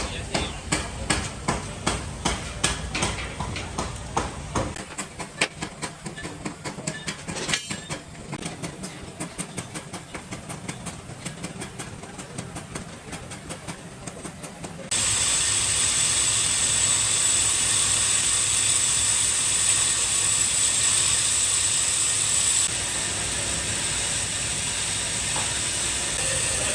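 Metal workshop sounds: quick repeated hammer-like strikes, about three a second, then an abrupt switch to a steady loud hiss with a high whine that drops a little in level near the end.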